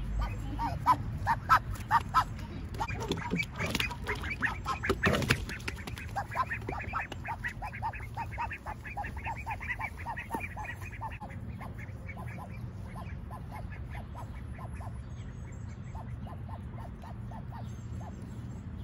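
Five-week-old ducklings, including a Pekin, calling in quick runs of short quacks. The calls are busiest for the first dozen seconds and then thin out, over a steady low rumble.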